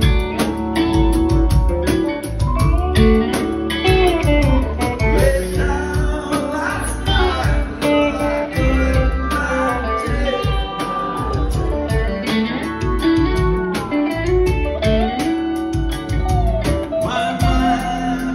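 Live rock band playing an electric-guitar jam: two electric guitars play lead lines with bending notes over drums and bass, with pedal steel guitar in the mix.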